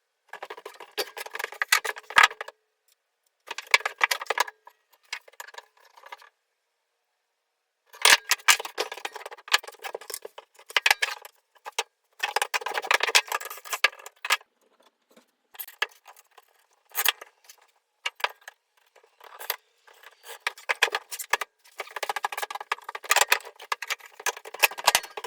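Metal end-table brackets and wooden boards clinking and clattering as they are handled and fitted together into a stove platform, in several stretches of rapid knocks and jingling broken by silent gaps.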